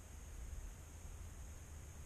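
Faint steady hiss with a low rumble underneath and a thin, constant high-pitched electronic whine: the onboard camera's own microphone and electronics noise, with almost nothing else to pick up.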